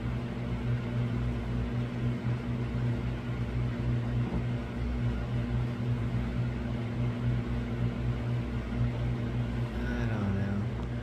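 Steady low electrical hum of a small appliance or fan running, unchanging throughout.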